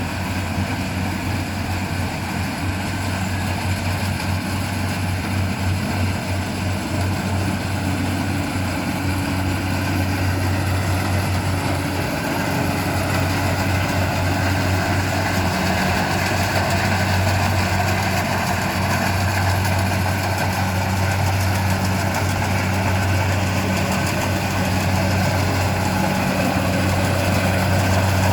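Engine of a rice-harvesting machine running steadily, growing slightly louder over the stretch.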